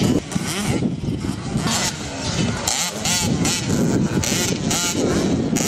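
65cc two-stroke motocross bike engines revving hard, their pitch rising and falling over and over as the riders work the throttle.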